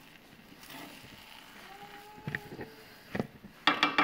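A spatula stirring and tossing biryani rice in a large cooking pot: soft scraping, a couple of knocks against the pot, then a quick run of loud clattering near the end.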